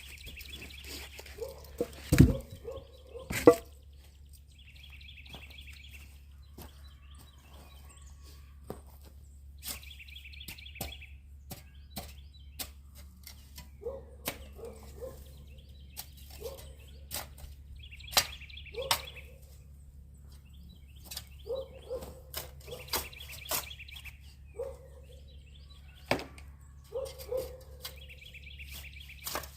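Knocks and thuds of outdoor building work, two loud thunks a couple of seconds in and lighter clicks and knocks after, with a bird's trill repeating every four to five seconds over a steady low hum.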